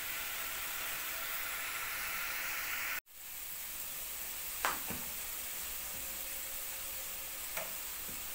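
Steady sizzling hiss of diced carrots and vegetables frying in a pan on a gas stove. It drops out for an instant about three seconds in. A sharp clink comes about a second and a half later, and a lighter one near the end.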